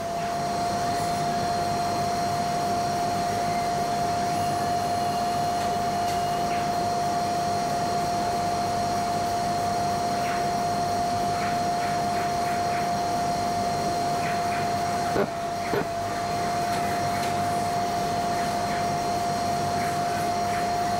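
Dust-extraction vacuum running steadily with a constant whine, under the scraping of a hand sanding board with P120 paper over body filler on a car door. Two short knocks come about fifteen seconds in.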